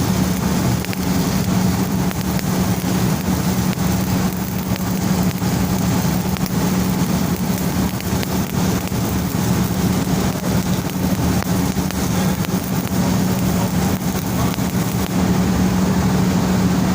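Arc of a stick welder burning a low-hydrogen electrode, a steady crackle that runs without a break, over a constant low hum.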